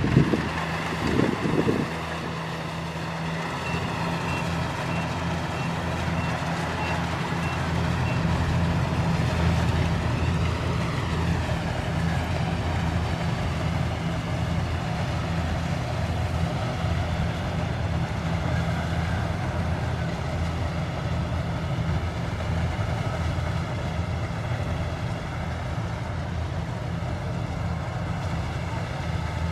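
Kubota combine harvester's diesel engine running steadily under load. From about four to eight seconds in, a run of short high beeps comes about two a second, like a reversing alarm.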